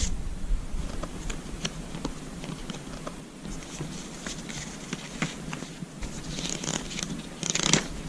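Typing on a Redragon Ratri K595 RGB mechanical keyboard with Outemu Black linear switches: irregular key clacks several times a second, with a louder flurry of keystrokes near the end.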